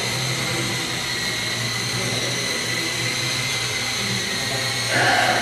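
Model tandem-rotor Chinook helicopter in hovering flight: a steady high whine from its motors and counter-rotating rotor blades, briefly louder near the end.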